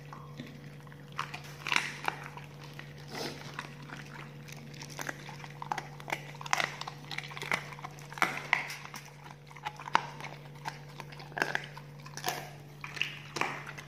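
A pit bull licking and chewing: irregular wet smacks and clicks, over a steady low hum.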